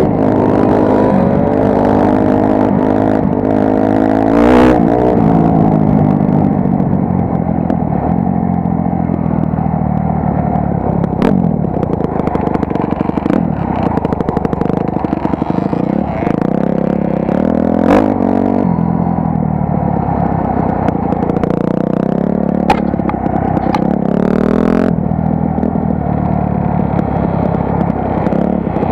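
Honda CRF250R dirt bike's single-cylinder four-stroke engine heard from the rider's helmet, its pitch rising and falling with the throttle as it rides. A few sharp clicks break through about a third, three-fifths and three-quarters of the way in.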